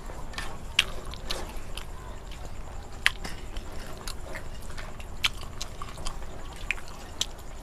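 People eating rice and curry with their hands from steel plates: chewing, with irregular sharp clicks and smacks, the loudest about a second in and about three seconds in.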